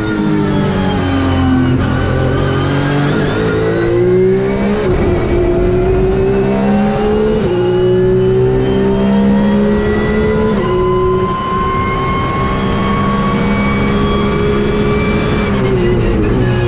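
Porsche 992 GT3 Cup's flat-six racing engine heard from inside the cockpit, under load. The revs fall at the start, then climb through three upshifts, each a sudden drop in pitch, then rise steadily before falling again near the end.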